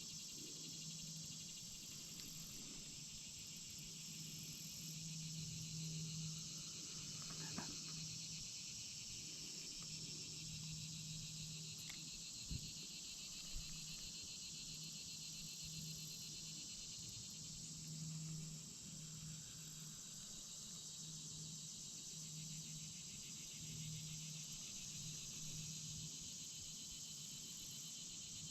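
A steady, high-pitched chorus of crickets and other insects chirring, with a few faint clicks a little under halfway through.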